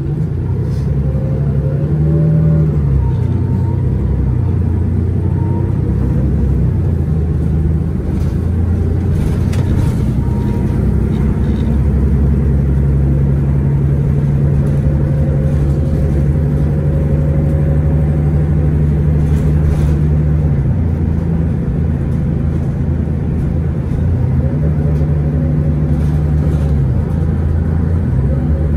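Cummins ISL9 diesel engine of a 2011 Orion VII transit bus running under way, its low drone shifting pitch in steps several times as the bus speeds up and eases off, with a long steady stretch in the middle.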